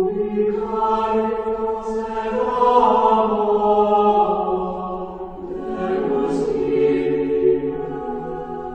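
Sung chant in a choir style: slow, long-held vocal notes that shift gradually in pitch, fading out near the end.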